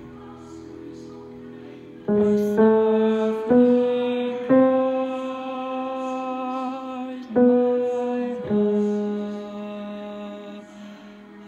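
Slow, soft music: faint for about two seconds, then a string of held notes, each starting sharply and fading gently, a new note every second or so.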